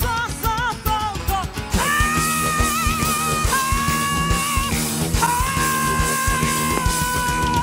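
Live rock band playing, with heavy drumming from two drummers under a melody line that moves quickly for about the first second and a half, then settles into long held notes.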